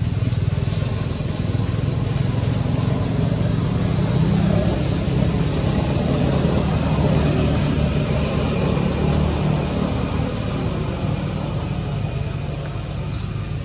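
Road traffic: a steady engine rumble from passing motor vehicles, swelling a little midway and easing toward the end.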